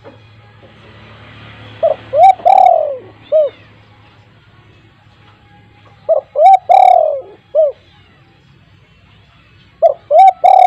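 Spotted dove (tekukur) cooing: three loud phrases about four seconds apart, each a quick run of four or five coos with one longer note in the middle.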